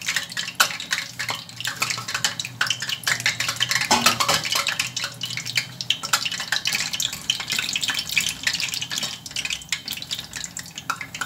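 Dough rolls deep-frying in hot oil in a stainless saucepan: a steady, dense crackle and spitting, which the cook puts down to water inside a cut piece. Now and then a wire skimmer and tongs clink against the pan.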